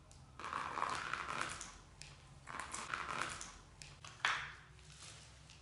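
Paint being worked on a canvas on the floor: two spells of rough scrubbing, then a single sharp knock about four seconds in.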